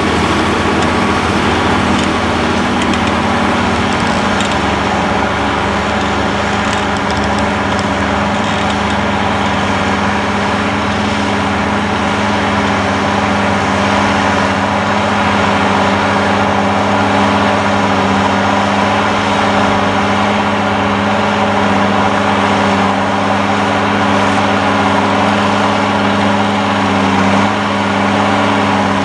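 SAME Titan 190 tractor's six-cylinder diesel engine running steadily under heavy load as it pulls a two-furrow ER.MO plough through the soil.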